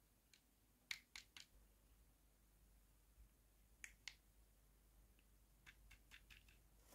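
Faint, sharp clicks of a small hard-plastic toy figure being handled, its hinged wing pieces moved in the fingers: three clicks about a second in, two more near four seconds, and a quick run of clicks near the end.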